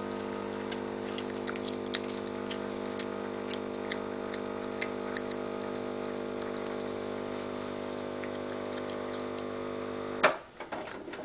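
Cat gnawing on a raw meat bone, its teeth giving scattered sharp crunches and clicks. A steady mechanical hum runs underneath and cuts off with a loud click near the end.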